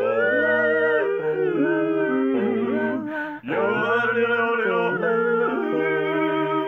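One man's voice multitracked into four-part a cappella harmony, yodeling a wordless cowboy cattle-call refrain. The top line leaps and breaks between notes over a low bass part held in long notes, with a brief break about three seconds in.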